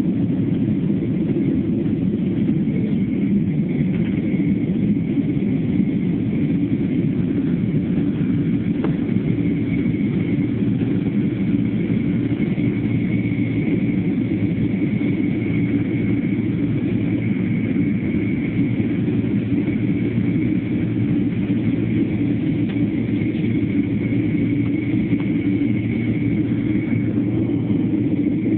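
Jet airliner's engines and airflow heard from inside the passenger cabin: a steady, loud rumble with a thin high whine held over it for most of the time.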